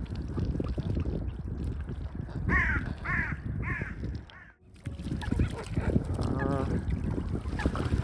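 Wind buffeting the microphone, with waterbirds and crows calling: three clear arched calls about half a second apart near the middle, then wavering, quavering calls later on.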